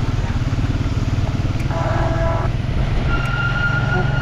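Motor vehicle engine and road noise, a steady low rumble. About two seconds in a short pitched tone sounds for under a second, and from about three seconds in a thin, steady high tone comes in and holds.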